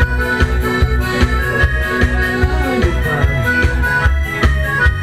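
Live dance music played on an electronic keyboard through loudspeakers: an accordion-sounding melody over a steady bass beat.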